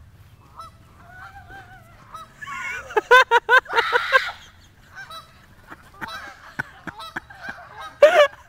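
Canada geese honking: a quick run of loud, repeated honks about three seconds in, quieter wavering calls before it, and another burst of honking near the end.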